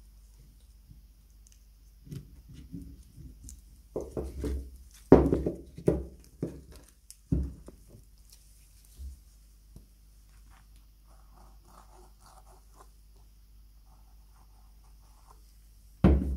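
Objects being handled: a run of knocks and clatters, loudest about five seconds in, then faint light clicking, and one more sharp knock near the end.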